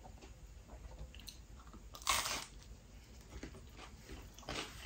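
Close-up eating sounds of a slice of spinach and cheese pizza being bitten and chewed. There is a crisp crunch of the crust about two seconds in, a smaller one near the end, and soft chewing between them.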